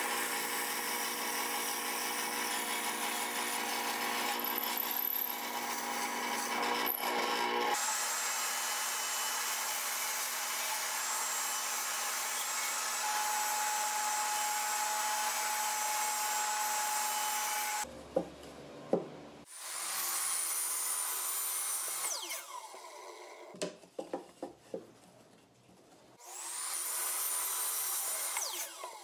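A run of woodworking power tools. For the first eight seconds or so a drill press bores into a wood block with a steady motor hum. A table saw then rips plywood for about ten seconds, and near the end a miter saw makes short cuts through plywood, its blade winding down after a cut.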